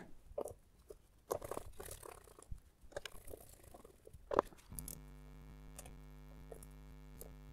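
Faint handling noises as a rubber hose with a metal flange is fitted onto a plastic intake manifold: light clicks and small knocks, with one sharper click about four seconds in. A faint steady hum follows for the last few seconds.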